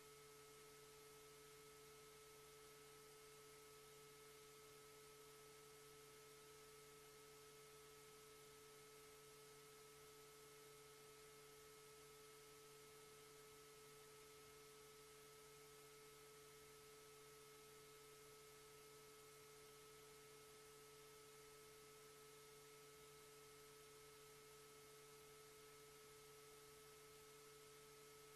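Near silence: a faint, steady electrical hum of a few constant tones over hiss from the microphone feed.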